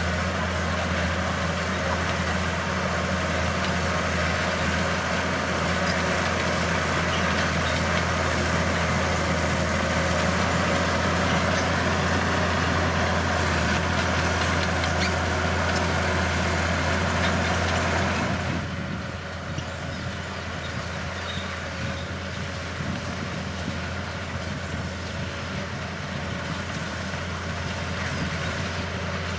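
Bulldozer's diesel engine running steadily with the clatter of the machine at work; about two-thirds of the way through the sound drops to a lower, thinner level.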